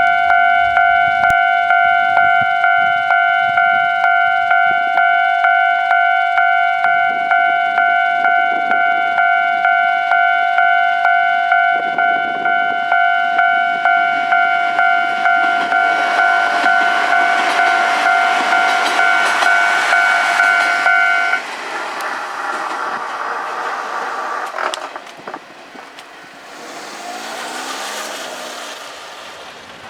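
Japanese level-crossing alarm ringing a steady repeating ding, a little under two strikes a second, while a KiHa 48 diesel railcar comes through the crossing, its running noise building. The alarm stops about two-thirds of the way through, and the train's noise goes on and fades away.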